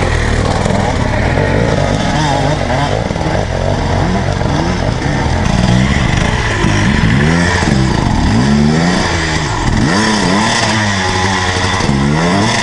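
Two-stroke enduro dirt bike engines revving in repeated throttle bursts on a rocky climb, the pitch swinging up and down again and again. The revving grows louder and more frequent from about halfway through.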